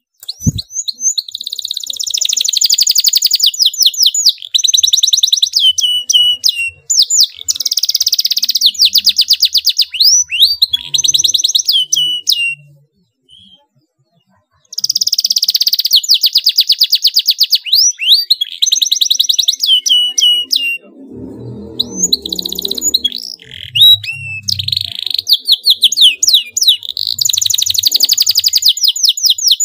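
Domestic canary singing in full song: long phrases of very fast, tight high trills ('rolls'), with brief gaps between phrases and a pause of about two seconds near the middle.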